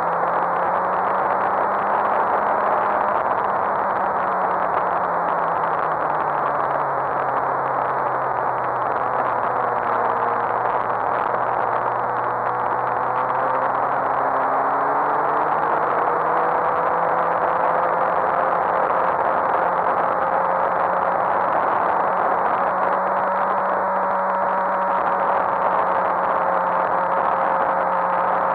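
Suzuki GSX-R1000 K7's inline-four engine running on track under heavy wind rush. Its pitch sags from about 6 seconds in and climbs back around 15 seconds in, then holds steady.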